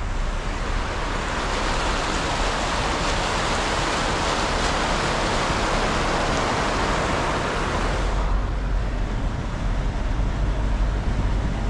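Floodwater rushing across a road as a steady wash of noise, heard from the car's side window. About eight seconds in it drops away, leaving the low rumble inside the stopped car.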